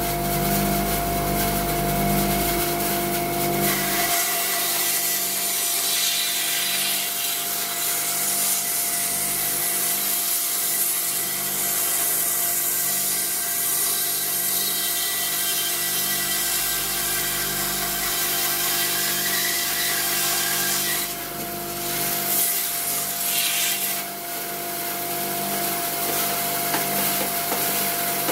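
18-inch Jet bandsaw running and resawing a small log held in a milling jig: a steady sawing noise over the machine's even hum, thickening about four seconds in as the blade bites into the log.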